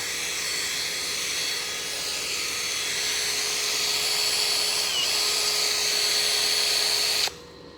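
Makita 18-volt brushless cordless drill running free with the trigger held, a steady high motor whine, stopping abruptly near the end.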